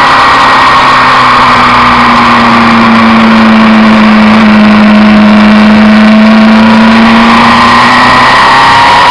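Suzuki Inazuma 750's inline-four engine running loud under way on the road, its carburettors freshly adjusted. The engine note eases slightly through the middle and rises again near the end as it pulls away.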